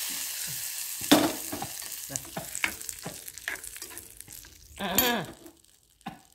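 Hot mustard-seed and dried-red-chilli tempering sizzling as it hits beetroot pachadi, fading within the first second. Then a metal spoon stirring it through the pan with scattered clinks and scrapes.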